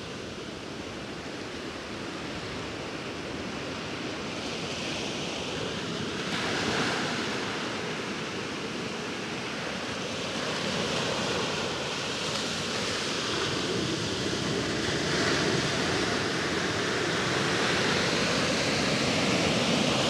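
Large ocean waves breaking on the shore: a continuous rush of surf that swells several times as waves crash, growing louder toward the end.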